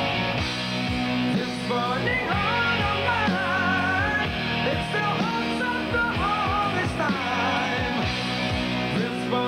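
Hard rock band playing live: electric guitar, bass and drums, with a high lead line that bends and wavers in pitch over a steady drum beat.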